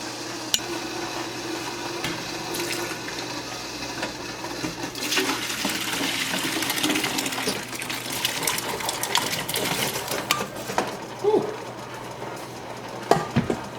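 Cooked red kidney beans and their cooking liquid being transferred from one pot to another, with sloshing and splashing and small metal clinks of utensil on pot. A few sharper knocks of metal on the pot come near the end.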